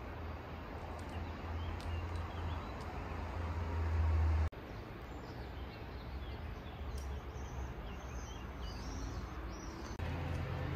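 Outdoor ambience: wind rumbling on the microphone, swelling and then cutting off abruptly about halfway through. Afterwards small birds chirp and twitter high over a steady background hiss.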